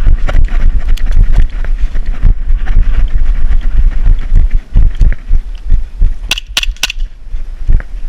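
Hurried footsteps and body movement knocking and rubbing against a worn action camera, giving a steady run of loud low thuds and clicks. Three quick sharp cracks come about six seconds in.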